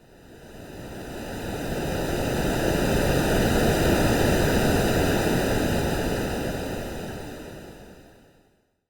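AI-generated ocean-wave sound: one swell of rushing noise that builds for about four seconds, then fades away to nothing.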